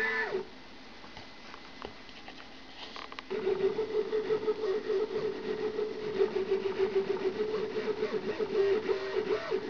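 Stepper motors of a home-built CNC plotter whining as the axes drive the pen. After a quieter stretch with a few faint clicks, a steady pitched whine with a fast, uneven pulsing starts a little over three seconds in, shifting pitch near the end.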